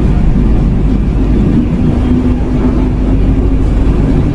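Locomotive-hauled passenger train running along the rails, heard from inside an economy coach: a loud, steady rumble of wheels and carriage, with a low steady hum joining in about a second and a half in.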